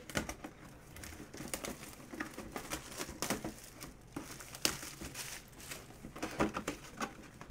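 Cardboard mini-helmet box and its packaging being handled and opened by hand: irregular crinkling with scattered clicks and taps, the sharpest a little before five seconds in.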